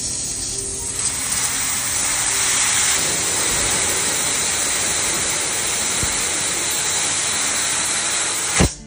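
A pressurised jet hissing loudly and steadily, growing louder about a second in and cutting off abruptly with a click near the end.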